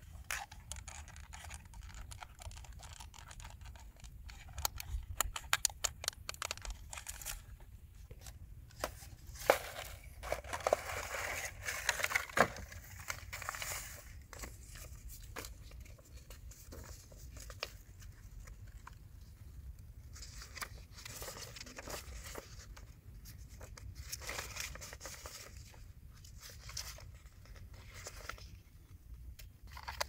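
Hands handling a plastic packaging tray, a paper manual and a toy remote control: a run of small sharp clicks and taps, then a longer stretch of plastic and paper rustling and crinkling about ten seconds in, with quieter scattered rustles after.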